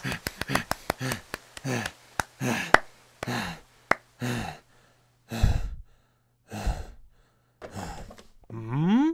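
A person's voice acting out heavy panting: a series of hard breaths, roughly one a second, after a run of quick clicks at the start. Just before the end comes a rising voiced 'hm?'.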